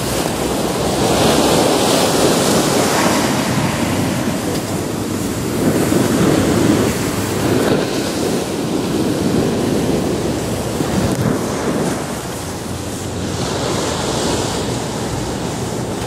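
Ocean surf washing onto a sandy beach, a steady rush that swells and eases with each wave.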